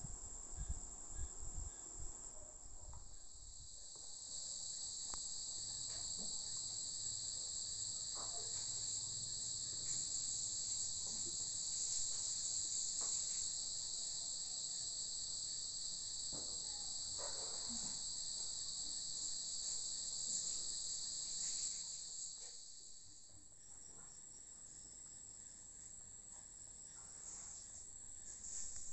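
Crickets trilling in a steady high continuous drone. A second, lower trill joins a few seconds in and cuts off abruptly about five seconds before the end, with a few faint soft knocks along the way.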